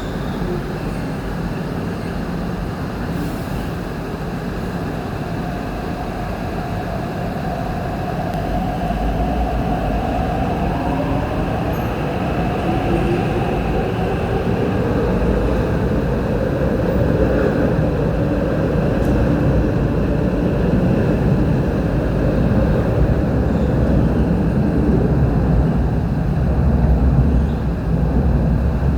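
MTR Tuen Ma Line C-Train electric multiple unit running alongside the platform, its wheels rumbling on the rails and its traction motors giving a shifting whine. The rumble grows steadily louder.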